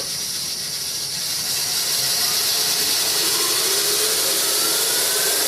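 Burr King Model 760 variable-speed three-wheel belt grinder running with its abrasive belt spinning: a steady hiss with a faint whine that rises slowly in pitch as the machine comes up to about 7,000 surface feet per minute.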